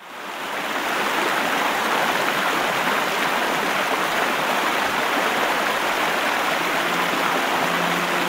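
River rapids: water rushing and foaming over rocks, a steady, loud rush that swells in over the first second.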